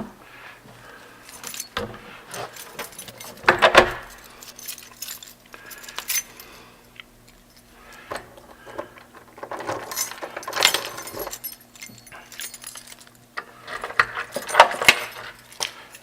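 Metallic clinking and jangling in irregular bursts, with three main clusters of rattling.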